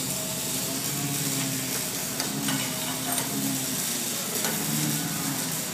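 Steady hiss with a low hum that comes and goes, and a few light metallic clicks as nuts are run onto the bracket bolts by hand, finger tight.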